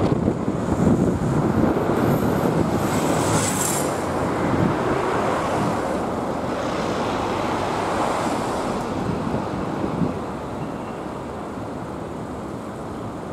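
Road traffic passing on a city street, a car and then a truck going by, with wind rumbling on the microphone. The noise eases off about ten seconds in.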